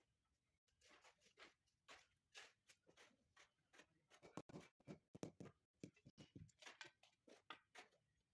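Faint, irregular taps and scrapes of hand tools on masonry: a trowel working cement mortar and a rubber mallet tapping a stone slab down onto its mortar bed.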